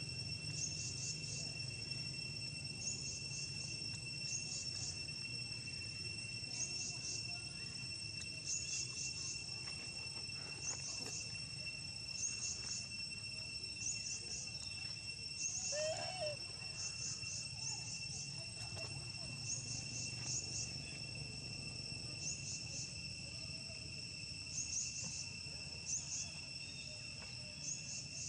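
Forest insects calling: a steady high-pitched trilling with short chirps repeating every second or so. A single brief squeak comes about halfway through.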